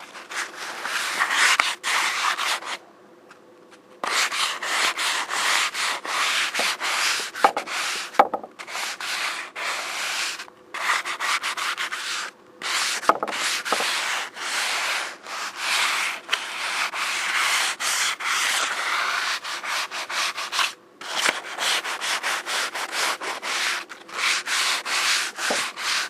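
Sandpaper rubbing back and forth on wooden kitchen cabinet doors in quick, uneven strokes, stopping briefly a few times: about 3, 10, 12 and 21 seconds in. A faint steady hum runs underneath.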